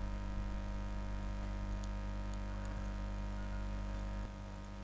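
Steady low electrical hum with faint hiss, the background noise of the recording. It drops a little in level about four seconds in.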